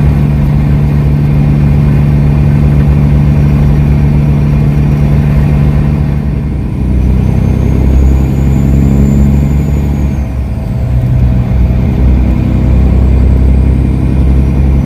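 Inside the cab of a Kenworth W900L semi truck at highway speed: a steady diesel engine and road drone with a strong low hum. The hum shifts about six seconds in and again around ten seconds in.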